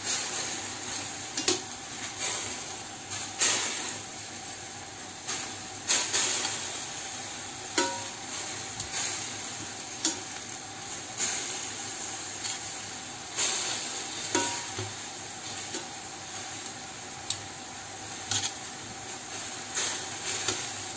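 Greens and garlic sizzling in a stainless steel frying pan while a metal utensil tosses them, scraping and clinking against the pan every second or two; a few of the clinks ring briefly.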